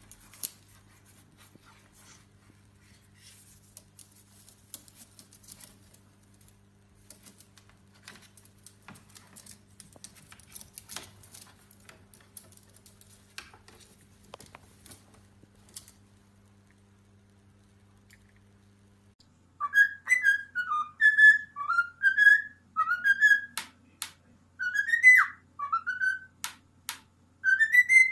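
Faint, irregular light clicks and taps over a low hum. About two-thirds of the way in, a parrot starts whistling a run of short notes that slide up and down, loud and clear.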